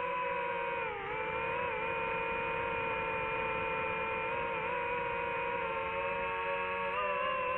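DJI FPV drone's motors and propellers whining at a steady pitch, with a brief dip in pitch about a second in as the throttle eases.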